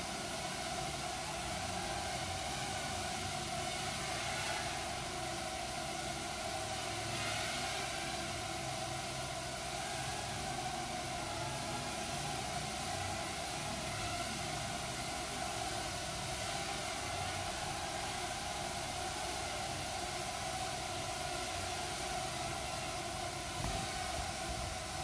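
A swarm of micro quadcopters, each under 40 g, hovering together: a steady buzzing whine of many small propellers over a constant hiss.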